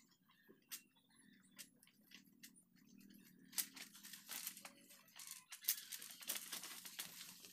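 Dry leaves and brush crackling and rustling, with scattered sharp clicks that come thicker and louder from about halfway in.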